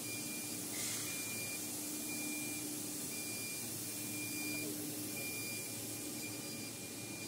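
5-axis CNC router running: a thin high whine that starts and stops every second or so over a low, steady hum, with a short hiss about a second in.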